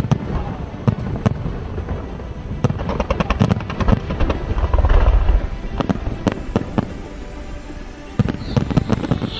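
Aerial fireworks going off: scattered sharp cracks, a rapid run of crackling about three seconds in, and deep booms around five seconds in.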